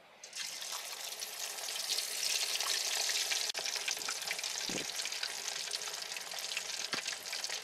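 A whole corn-flour-coated sea bass sizzling as it deep-fries in hot oil in a wok. The hiss swells about two seconds in and then eases a little, with a few light knocks from a metal spatula turning the fish.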